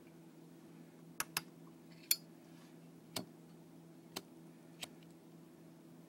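About six sharp metallic clicks, spread a second or so apart, from a Zippo lighter being handled and struck: the lid snapping and the flint wheel turning as he tries to light it on isopropyl alcohol. A steady low hum runs underneath.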